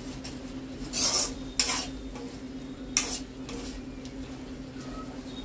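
A metal spatula stirring and scraping cauliflower pieces in gravy around a kadai, in a few separate strokes about a second in, again shortly after, and around three seconds in, over a low sizzle of the simmering curry. A steady hum runs underneath.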